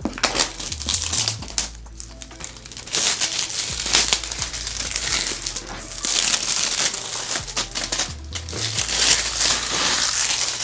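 Packaging crinkling and rustling in uneven bursts as a keyboard is unwrapped from its box, over background music.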